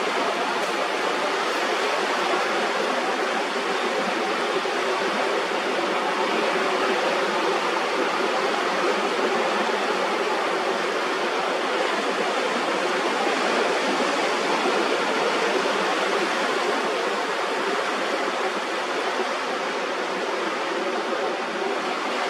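Steady rushing water, an even hiss-like noise with no breaks or swells.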